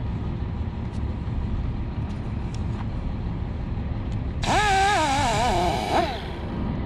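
A steady low engine-like rumble with a few faint taps. About four and a half seconds in comes a loud hiss carrying a wavering, whistle-like squeal that lasts under two seconds, then cuts off.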